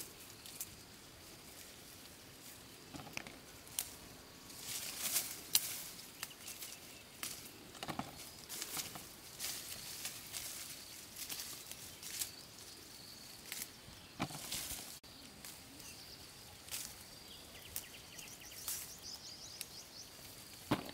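Leaves and twigs rustling, with irregular snaps and clicks as small green fruits are plucked by hand from the branches of a tree. A faint steady high tone sits underneath, and a short rapid high trill comes near the end.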